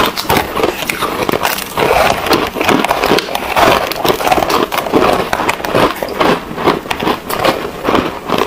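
Close-miked chewing of frozen foam ice and shaved ice: a dense, irregular run of crisp crunches, two eaters' mouth sounds layered together.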